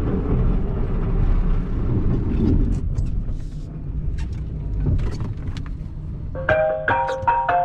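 Plow truck's engine running with a steady low rumble. About six seconds in, a phone ringtone starts, playing a short repeating melody: an incoming call.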